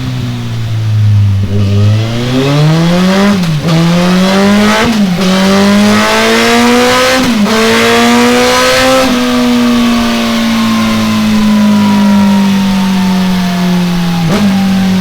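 Kawasaki ZZR1400's inline-four engine breathing through a pair of Delkevic tri-oval stainless steel exhausts during a dyno run. The revs climb, with three brief dips as it shifts up through the gears, then the pitch falls slowly as the throttle is rolled off.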